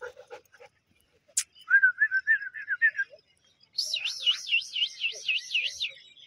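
A bird calling: a short warbling whistle, then a louder, higher whistle that wavers up and down about four times a second.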